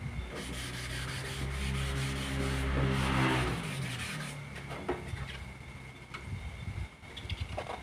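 Wet sanding by hand: sandpaper on a block rubbed back and forth over a resin-coated carbon-fibre mirror cover, smoothing the cured resin coat. A low steady hum runs underneath and fades out about four seconds in.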